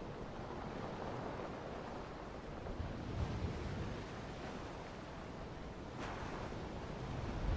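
A soft, steady rushing noise from a background nature-ambience track. It swells slightly about three seconds in and turns a little brighter near six seconds.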